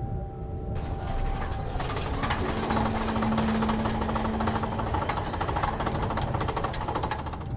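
Cinematic soundtrack build-up: a swelling rush of noise with rapid ticking and a low held tone partway through, cutting off abruptly near the end.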